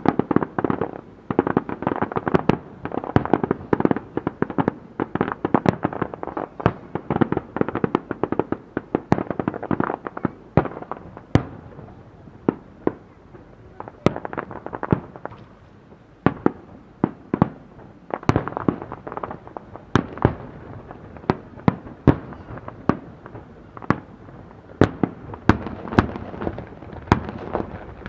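Fireworks display: aerial shells bursting in quick succession, many sharp bangs overlapping one another. The bangs come thickly in the first ten seconds, thin out in the middle, and bunch together again twice in the second half.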